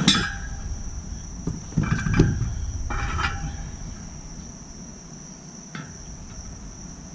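A steady high cricket chirring goes on behind a few sharp metallic clanks and knocks from the dirt bike wheel, tire and tools being handled. The loudest knocks come at the very start and about two seconds in, with lighter ones around three and six seconds.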